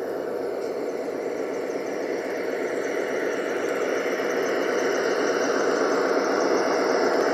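G-scale model diesel locomotives running past close by on the track: a steady mechanical running noise with a thin high whine over it, growing slowly louder.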